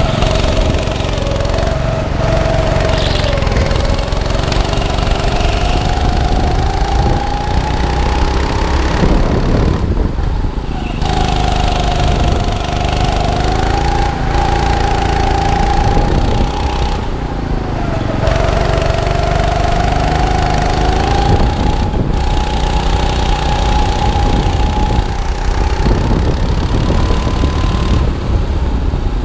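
Indoor rental go-kart's engine heard from the driver's seat through a lap, its pitch rising and falling with the throttle and dropping away briefly about ten, seventeen and twenty-eight seconds in, under steady road and wind noise.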